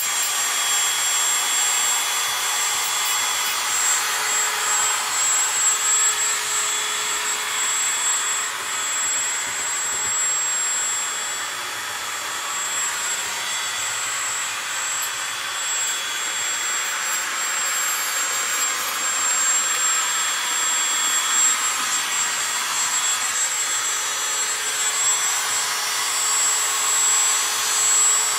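Loud, steady machine noise from work being done in the room: a hiss with a thin high whine over it, its level swaying slightly.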